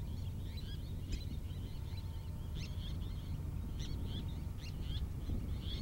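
Birds calling with short, high chirps, about two a second, over a steady low rumble.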